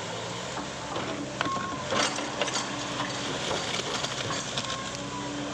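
Kobelco excavator's diesel engine running steadily while it works, with a few sharp clanks about one and a half to two and a half seconds in, and a humming tone that comes in twice.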